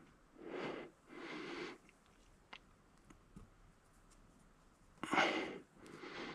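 A person breathing audibly close to the microphone: two soft breaths in the first two seconds and two more near the end, with a few faint ticks of handling in between.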